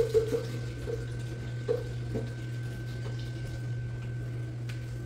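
Water running or splashing in a kitchen over a steady low electrical hum, with a few light knocks in the first two seconds.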